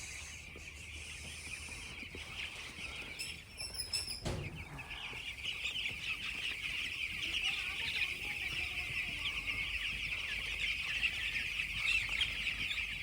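A large flock of poultry chicks cheeping together in a dense, continuous chorus. About four seconds in the chorus breaks off briefly and there is a short low thump.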